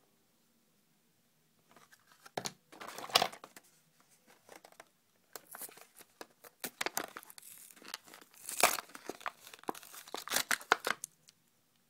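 Hot Wheels blister pack being torn open: the cardboard backing card tearing and the plastic blister crinkling in an irregular run of rips and crackles, starting about two seconds in.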